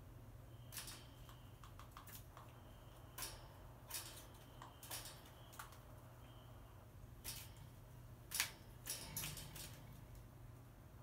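A crow moving about on a wire cage top: scattered faint clicks and taps, the loudest about eight seconds in, over a low steady hum.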